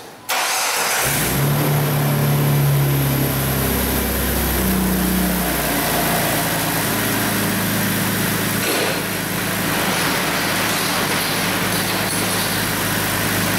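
A 2004 Jeep Grand Cherokee's 4.0-liter inline-six starts up about a quarter second in and runs at a raised idle, its pitch stepping down over the first few seconds before it settles into a steady warm-up idle.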